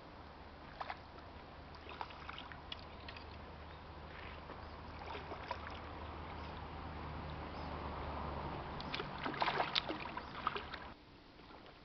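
A hooked asp splashing and thrashing at the water's surface beside the boat, in a run of sharp splashes that is loudest about nine to ten and a half seconds in. Under it a steady low hum builds, then cuts off suddenly near the end.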